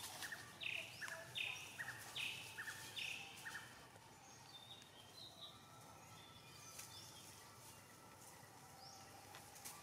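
A bird calling a run of four or five short, falling high notes, about one every 0.7 seconds, then only faint scattered chirps over quiet forest ambience.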